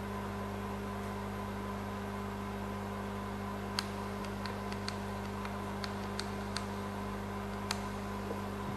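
Steady electrical mains hum, and from about four seconds in, a run of about ten light clicks from the Zoom H4 recorder's menu buttons as its effect patches are stepped through.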